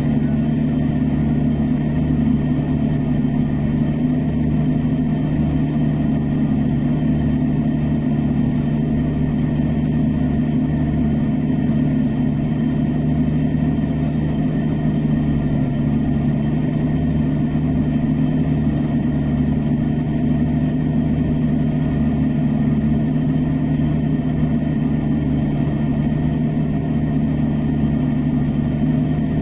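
Fendt 818 Vario tractor's six-cylinder diesel engine running steadily under load while ploughing, a constant low drone heard from inside the cab.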